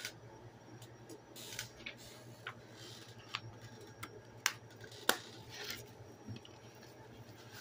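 Handling noise: scattered light clicks and rustles of a plastic 4K Blu-ray disc case being closed and handled, with two sharper clicks about four and a half and five seconds in, over a faint steady low hum.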